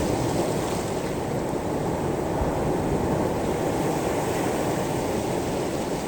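Sea waves washing over a pebble beach: a steady, deep rushing wash that eases slightly about a second in.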